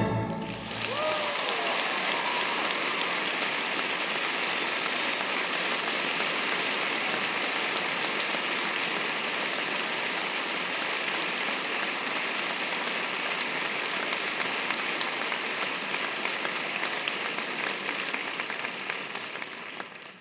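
Audience applauding steadily, with a brief whooping cheer about a second in; the applause fades out at the very end.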